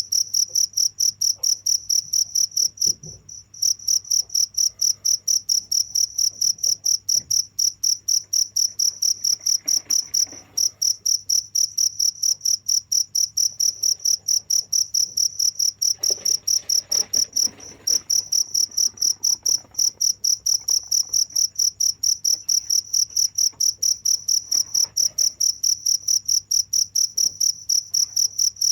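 Cricket chirping: a fast, even train of high-pitched chirps on one steady pitch, with a brief break about three seconds in.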